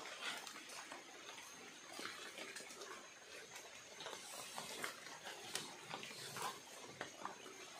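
Steady rush of a fast, flood-swollen river, with scattered small clicks and rustles throughout.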